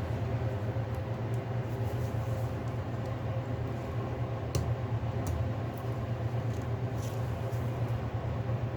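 Steady low hum of background noise, with a few faint, short clicks scattered through it, about a second or two apart.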